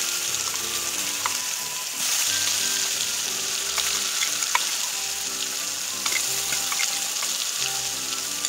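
Wet ground onion masala paste sizzling and spattering in hot oil in a metal kadai, a steady frying hiss, with a few light clicks of a metal spoon against the pan.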